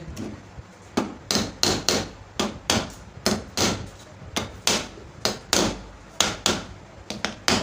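Hammer tapping steadily on a ceiling fan's stator core and new bearings, about three sharp blows a second, driving the core home into the fan's body.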